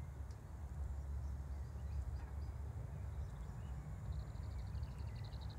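A steady low rumble, with a rapid, high-pitched trill of short chirps, about a dozen a second, starting about four seconds in, from a small animal.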